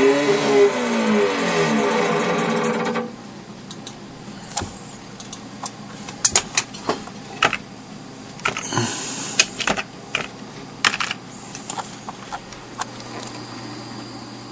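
Stepper motors of a small homemade CNC router running, a whine of several pitches that glides up and down as the axes move, stopping suddenly about three seconds in. Then scattered clicks of computer keyboard keys, and a steady low hum near the end.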